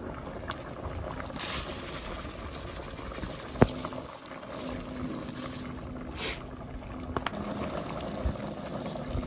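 Pot of chicken adobo simmering on the stove, a steady bubbling hiss with a faint hum that comes and goes. About three and a half seconds in there is a single sharp clink, the loudest sound, from the glass lid going onto the pot.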